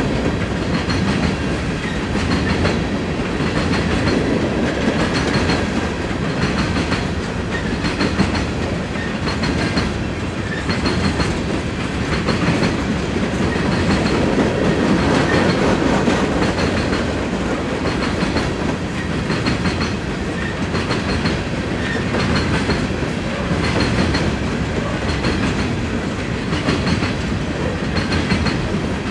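Empty coal hopper cars of a freight train rolling steadily past, a constant rumble of wheels on rail with clicks repeating in an even rhythm.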